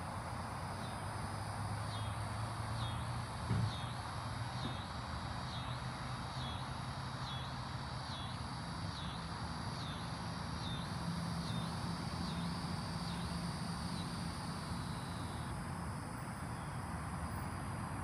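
Outdoor ambience: a steady low hum and a soft hiss, with a high call repeated about once a second from about a second in until about fourteen seconds in. A brief thump about three and a half seconds in.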